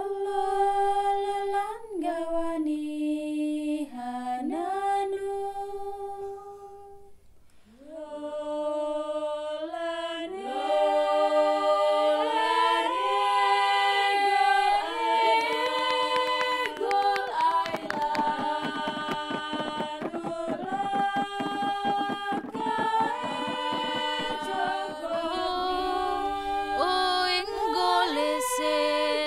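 Women's voices singing unaccompanied in long held notes that step from pitch to pitch, with several voices overlapping after a short pause. From a little past halfway a fast, dense clicking rhythm runs beneath the singing.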